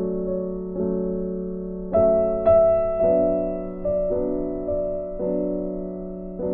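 Background piano music: slow single notes and chords, each struck and left to fade, about one or two a second.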